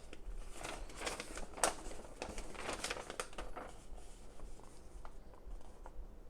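Paper instruction leaflet being unfolded and flipped through, crinkling and rustling; the handling is busiest over the first few seconds, then dwindles to a few faint ticks.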